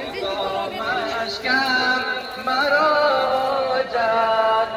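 A sung Shia mourning chant (noha) with long, wavering held notes.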